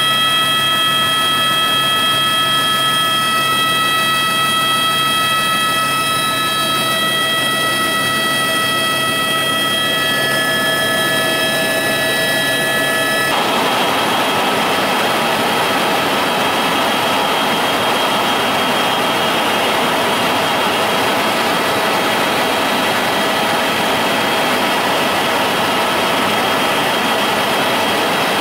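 Steady, loud engine drone with several constant whining tones. About 13 seconds in it changes abruptly to a hissier drone, the whine mostly gone.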